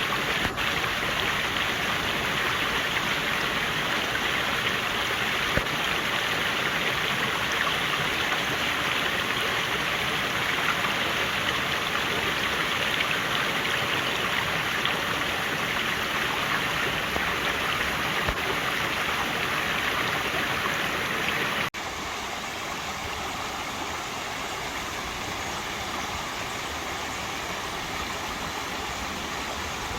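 Mountain stream flowing over rocks in a valley, a steady rushing and splashing. About two-thirds of the way through it cuts abruptly to a quieter, softer flow.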